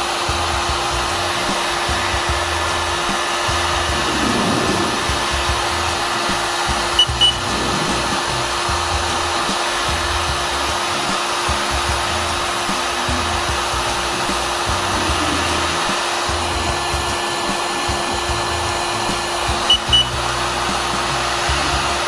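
Electric heat gun blowing steadily with its fan hum, held over a circuit-board chip to reflow the solder beneath it. A short double beep sounds twice, about 7 s and 20 s in, from the infrared thermometer taking temperature readings.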